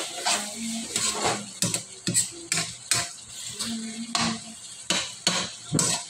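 Metal spoon scraping and knocking against a wok in repeated strokes, about two a second, while stirring shredded chicken adobo that sizzles as it fries down in its sauce to crisp.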